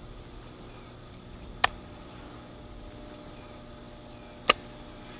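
Two sharp slaps about three seconds apart as wet clay is trodden and worked by hand. Under them runs a steady high insect drone.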